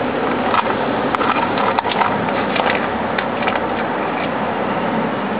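Small metal figurines being handled, with a few light clicks and taps, two sharper ones about a second and two seconds in, over a steady rushing background noise.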